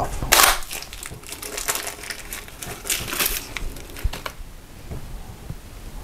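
Plastic cold-side cartridge of a Pfister bathroom faucet scraping and crunching as it is pulled out of the faucet body with Channellock pliers. A series of rough crunches and scrapes, loudest just after the start, dies away after about four seconds.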